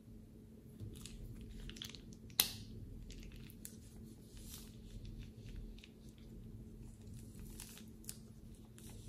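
Thin plastic piping bag crinkling and crackling as it is handled and squeezed. There is one sharp click about two and a half seconds in.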